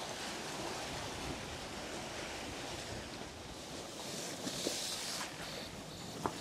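Wind rushing over the microphone and choppy sea washing, heard from the deck of a sailing catamaran. There is a brief louder hiss about two-thirds of the way through and a sharp tick near the end.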